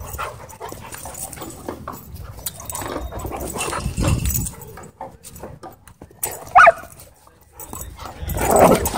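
Two dogs, a German Shorthaired Pointer and a black-and-tan dog, play-wrestling with rough growls and scuffling in irregular bursts. About two-thirds through comes one short, sharp, high yelp.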